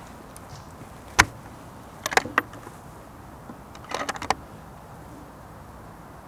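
A single sharp crack about a second in, then the Sako S20's bolt being worked: a quick run of metallic clicks as the bolt is lifted and drawn back about two seconds in, and another as it is pushed forward and locked down about four seconds in.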